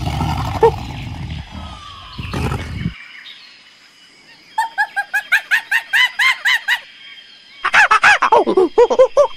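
A tiger's low growl for about the first three seconds, then, after a short lull, a monkey's rapid runs of high-pitched arching calls, about six a second, in two bouts.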